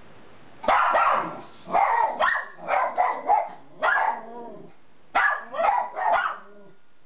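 Miniature schnauzers barking high-pitched, in several short bouts of barks with brief pauses between, starting about a second in.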